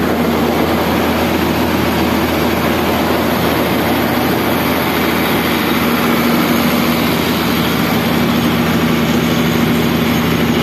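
An engine running steadily at constant speed, a low, even hum with no change in pitch or level.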